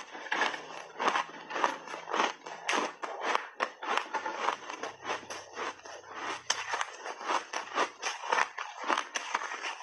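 Crunching and chewing of refrozen mixed berries close to the mouth: a dense, uneven run of sharp crisp crunches and crackles as the frozen pieces break between the teeth.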